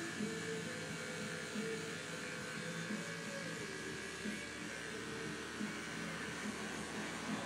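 Corded electric hair clippers buzzing steadily as they cut short hair on the back and sides of a head.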